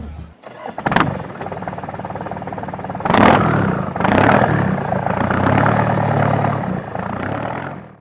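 An engine starting about a second in and running with a steady pulse, then revved twice, about three and four seconds in, before it cuts off near the end.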